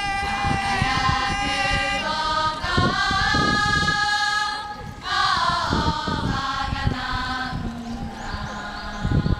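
A cheerleading squad singing together in unison as a group chant, in long held notes. The singing breaks briefly about halfway through, then goes on more faintly.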